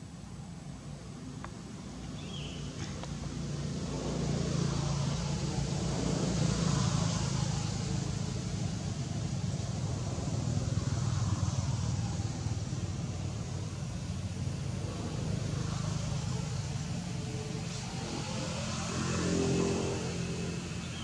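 Road traffic: vehicles pass one after another, each swelling and fading over a few seconds, over a steady low hum.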